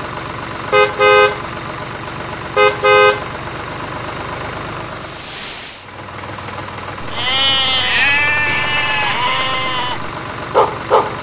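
A steady engine hum for the toy tractor, broken in the first three seconds by two double toots of a horn, beep-beeep, about two seconds apart. From about seven seconds in comes a wavering bleating animal call for about three seconds.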